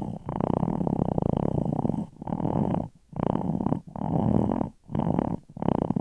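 Stomach growling: a pulsing, rumbling gurgle that comes in a run of bouts with short breaks between them.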